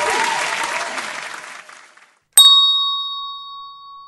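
Applause fading out over the first two seconds, then a hand bell struck once, about two and a half seconds in, its clear ring slowly dying away.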